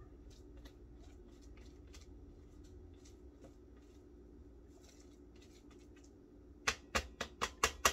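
Spatula scraping ground lentils down the inside of a plastic food processor bowl: soft scrapes and light ticks, then near the end a quick run of about seven sharp knocks of the spatula against the bowl. A faint steady hum runs underneath.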